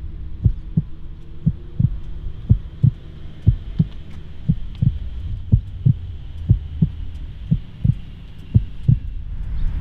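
MINI John Cooper Works exhaust with a Maxi-Tuner valved rear silencer running at a low idle: a steady low drone broken by irregular deep thumps, two to three a second. The engine note picks up again near the end.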